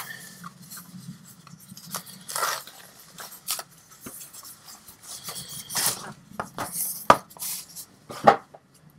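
Packaging being opened and handled: irregular rustling and rubbing, with two sharp clicks or knocks about a second apart near the end.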